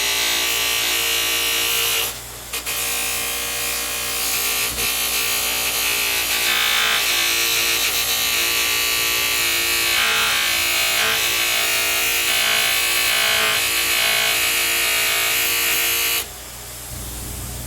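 Bench buffer's electric motor running while a metal rod is held against a buffing wheel charged with red rouge: a steady motor whine under a loud rushing hiss of polishing. The hiss drops out briefly about two seconds in and again near the end, leaving the motor running on its own.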